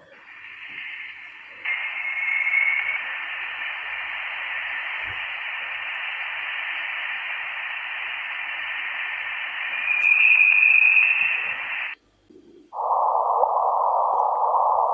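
Radio-static-like hiss from a spacecraft's electromagnetic recording converted to audio: a steady band of noise that gets louder about two seconds in, swells briefly around ten seconds and cuts off suddenly about twelve seconds in. After a short gap, a lower, duller band of hiss starts and runs on.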